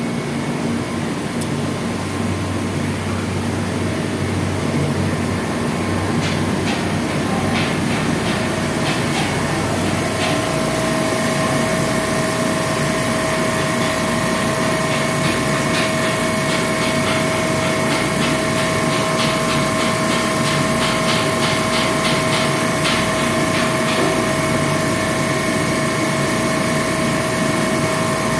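A machine running steadily with a low drone. About eight seconds in a steady hum joins it, and a regular ticking runs through the middle.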